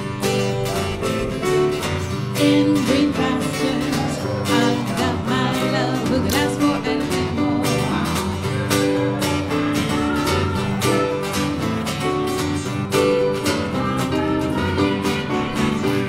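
Live acoustic guitar music, strummed with a steady, upbeat rhythm in a country style.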